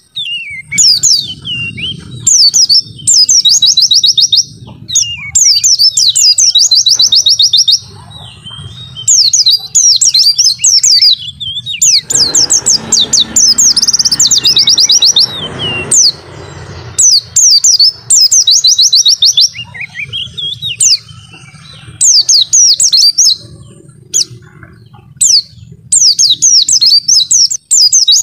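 White-eye (pleci) singing loud, high, rapid trilled phrases, each lasting about one to two seconds, repeated over and over with short pauses between them.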